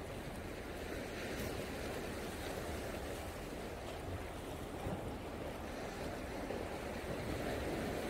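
Sea waves washing against volcanic basalt rocks along the shore: a steady, even wash of surf.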